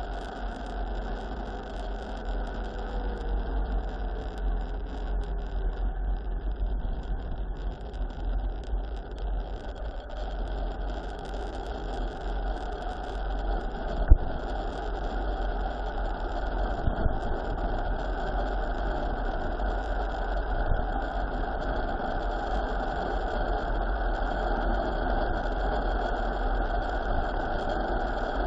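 Steady wind rush and rumble on the microphone of a mountain bike descending a road at speed, with a sharp knock about halfway through and a couple of lighter knocks after it.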